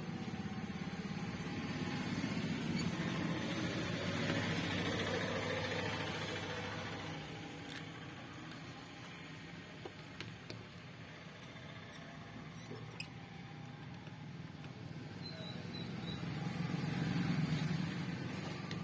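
Background road traffic: a low rumble that swells and fades twice as vehicles pass, with a few faint small clicks in the quieter middle stretch.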